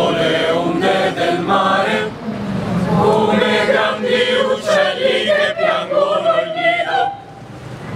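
A large chorus of young men's and women's voices chanting a verse in unison, as a tragic-drama chorus. The chant pauses briefly about seven seconds in.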